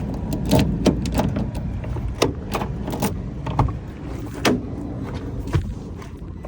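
A bunch of metal keys clicking and jangling as newly cut keys for a Ford RV are handled and tried in its lock, about nine separate clicks and knocks over a steady low rumble.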